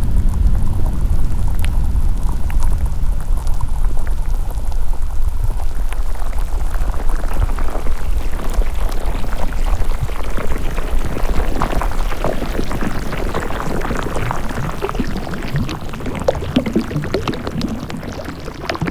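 Underwater ambience: a deep low rumble, joined about six seconds in by a dense bubbling, gurgling water texture full of fine crackles that grows to dominate as the rumble fades.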